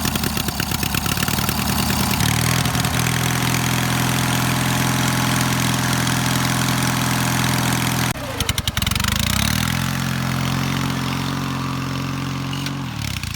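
Straight-piped lawn mower engine running just after a cold start: uneven for the first couple of seconds, then settling into a steady run. About eight seconds in it sputters for a moment and picks back up, and its pitch sags near the end.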